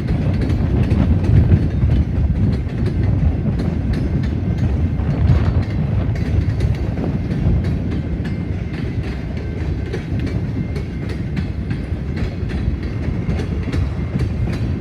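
Railroad cars of a passing train rolling by: a steady low rumble with repeated clicks of wheels over rail joints. Wind buffets the microphone.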